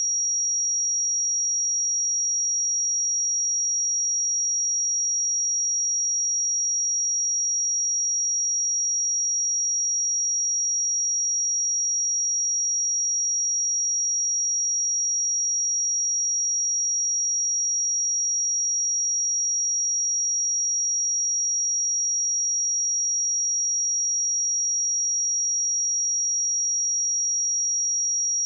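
A pure 5685 Hz sine-wave test tone, one steady high-pitched pitch held without change, used for testing speakers or headphones.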